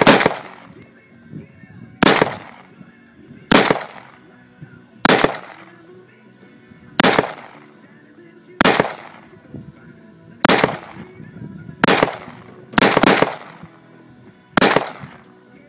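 AR-15 rifle fired one shot at a time, about ten shots at a steady pace of one every one and a half to two seconds, each with a short fading echo. Two shots come in quick succession a little past the middle.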